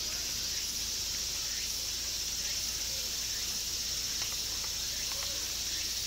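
Steady, high-pitched chorus of summer insects, unbroken throughout, with a few faint distant voices underneath.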